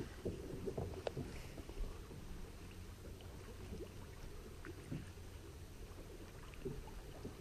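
Faint, steady low rumble of water and wind around a small fishing boat, with a few faint taps scattered through it.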